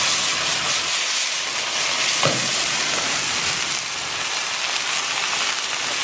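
Meat frying in hot oil in a pan over a wood fire: a steady sizzle, with a single pop about two seconds in.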